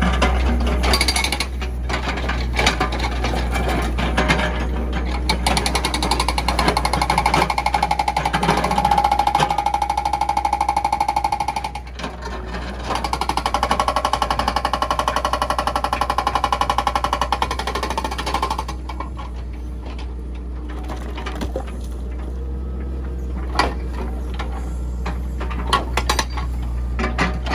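Case 695ST backhoe loader's diesel engine running with a steady low hum and rapid rattle. Twice a held whine rises over it for several seconds, as when the hydraulics are worked.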